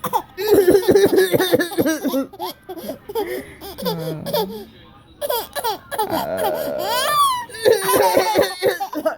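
A young child laughing in repeated, quickly pulsing bursts, with a high rising squeal about seven seconds in.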